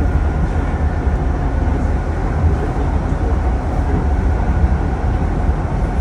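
A train in motion, heard from inside the carriage: a steady low rumble of running noise.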